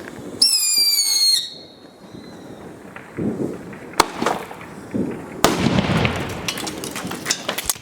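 Fireworks going off: a loud whistle falling slightly in pitch for about a second, then a sharp bang about four seconds in and a second blast about a second later, followed by crackling and scattered clicks. One of the bangs is a large firecracker blowing the dustbag section off a vacuum cleaner.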